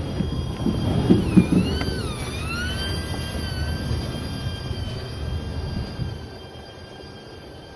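Freight train running, a low rumble with a high whine over it. The whine dips in pitch about two seconds in and then holds steady, and the rumble falls away about six seconds in.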